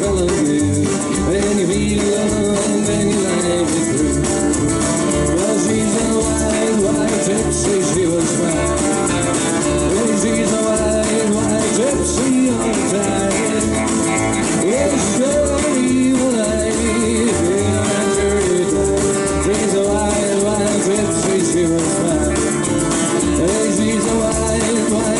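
Live rockabilly band playing a song: upright double bass thumping out a steady beat under acoustic and electric guitars and drums, with a man singing.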